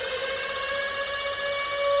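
Civil-defence air-raid siren sounding one steady wailing tone. Its pitch levels off after a slight rise, and it grows a little louder near the end.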